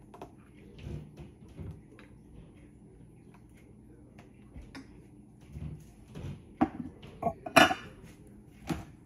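Metal spoon clinking and scraping against a stainless steel mixing bowl and a small metal cup while spooning out a liquid mixture. There are scattered light taps, with one louder ringing clink late on.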